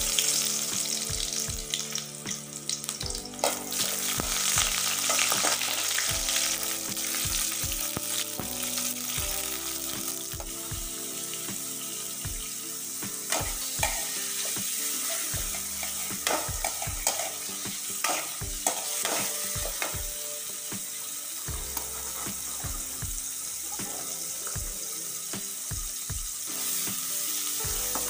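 Chopped shallots and garlic, then sliced carrots, sizzling in hot oil in an aluminium wok. The sizzle starts suddenly as the aromatics go in, and a long metal spatula scrapes and clinks against the pan as they are stir-fried.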